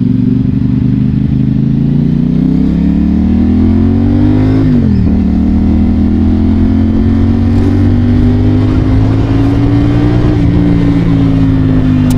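CFMoto 450SR-S parallel-twin engine through an aftermarket muffler, accelerating on the road. The engine note climbs, drops sharply at a gear change about five seconds in, then rises more slowly before easing off slightly near the end.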